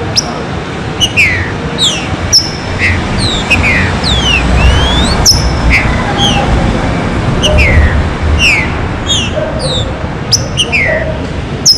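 Green-winged saltator (trinca-ferro) calling: a run of short, falling chirps about once or twice a second, with two longer whistled glides in the middle, one falling and one rising. A low rumble of background noise runs underneath.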